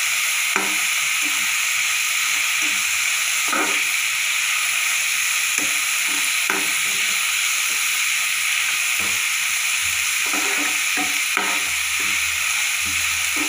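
Chopped onion, tomato and green capsicum sizzling steadily in hot oil in a metal pan while a metal slotted spoon stirs them, scraping and knocking against the pan every few seconds.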